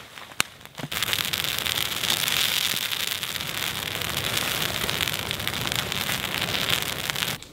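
Brush-pile fire flaring up, with dense, fast crackling and popping. It starts suddenly about a second in and cuts off abruptly near the end.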